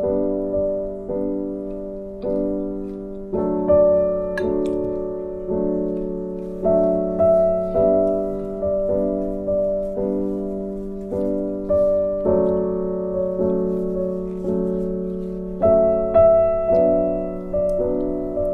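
Background piano music: gentle chords struck about once a second, each left to fade before the next.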